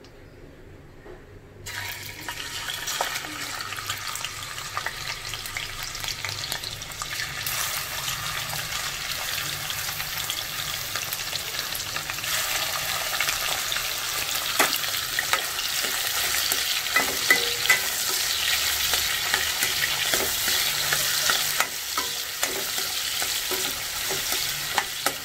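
Prawns frying in hot ghee and oil in a kadai, sizzling. The sizzle starts suddenly about two seconds in as the prawns go into the pan and grows louder as more are added. A spatula stirs through it, with occasional taps against the pan.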